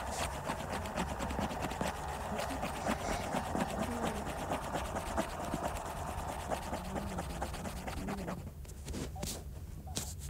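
Rubbing and scratching handling noise from fingers moving over the tablet's touchscreen, picked up by the device's own microphone. It goes quieter about eight seconds in, leaving a few separate clicks.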